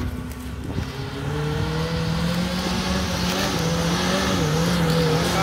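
Small Suzuki off-road jeep's engine pulling hard under load up a steep dirt climb, its revs rising about a second in and then held high and steady, growing louder as it approaches, with a brief dip in revs near the end.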